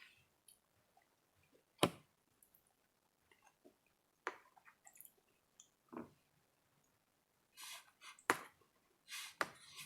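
Close-up eating sounds, quiet between a few sharp clicks that come roughly every two seconds; the loudest click is about two seconds in.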